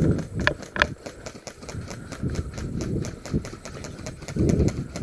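Airsoft guns firing: a rapid, even run of sharp clicks, about eight a second, with a few low thumps underneath.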